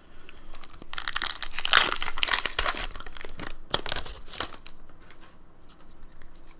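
Pokémon booster pack's foil wrapper being torn open by hand, a crinkling, crackling tear from about one second in until about four and a half seconds, loudest in the first half, followed by a few faint clicks of handling.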